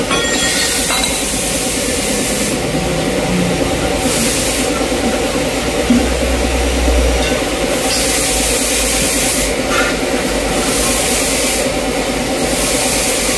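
A steady mechanical hum with hiss, its upper hiss coming and going, and a light knock about six seconds in.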